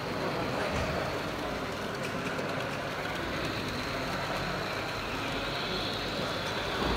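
Steady hall background noise with an H0 model steam locomotive and coal wagons running along the layout track.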